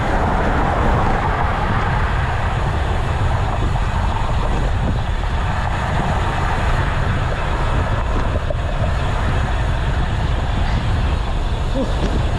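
Strong wind buffeting the microphone on a moving road bike: a loud, steady rumble that never lets up.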